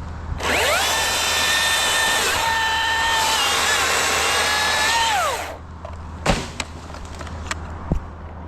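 Chainsaw revving up, cutting for about five seconds with its high whine dipping slightly under load, then winding down. Two sharp knocks follow.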